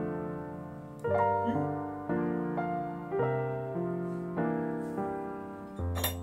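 Background piano music: soft notes and chords, a new one struck about every second and left to fade.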